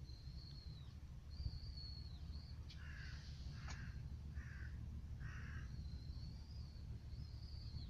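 A crow cawing four times, the calls coming a little under a second apart, over a thin high wavering whistle of another songbird and a steady low background hum.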